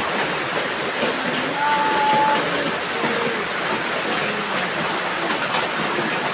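Heavy rain falling: a steady, dense hiss.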